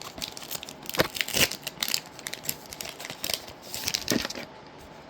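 Foil wrapper of a Pokémon TCG booster pack being torn open and crinkled by hand: a dense run of irregular crackles, loudest between one and two seconds in, dying away near the end.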